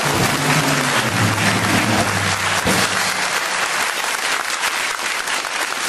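Studio audience applauding, steady and fairly loud, with a low held tone underneath for the first three seconds.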